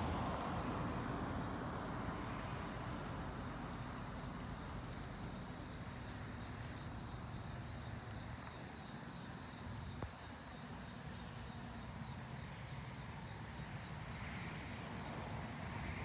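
Insects chirping in a steady, even rhythm of a few pulses a second, with a low rumble underneath.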